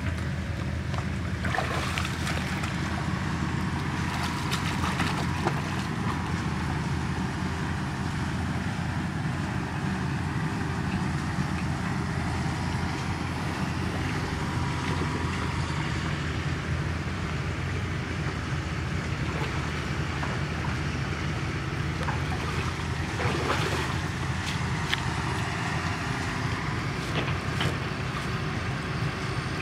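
A small engine running steadily throughout, with water splashing now and then, most clearly about two seconds in, around five seconds and a little before the three-quarter mark.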